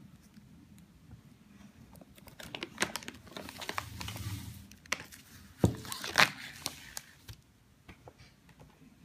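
A plastic candy bag crinkling and rustling as a cat noses and paws into it, a string of irregular crackles starting about two and a half seconds in, sharpest just before the middle and dying away well before the end.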